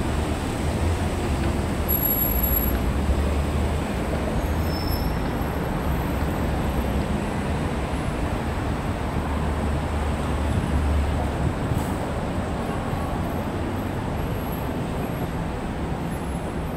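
City street traffic noise: a steady wash of passing vehicles with a low rumble that swells and fades.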